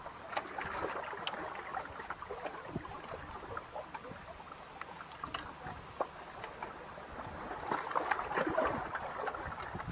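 Water lapping and splashing in small, irregular splashes, busier about eight seconds in.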